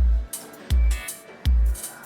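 Background electronic music with a heavy, deep bass-drum kick about every three-quarters of a second and a light cymbal tick in between.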